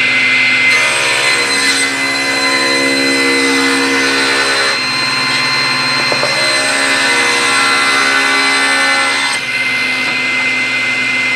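Table saw running with a steady high whine while its blade rips a board fed along the fence. The heavier cutting sound drops out for about two seconds near the middle, comes back, and stops about nine seconds in, leaving the blade spinning freely.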